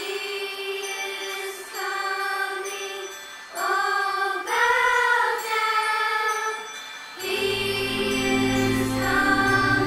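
Atmospheric worship music: choir voices holding long notes that change every second or two, with a low bass drone coming in about seven seconds in.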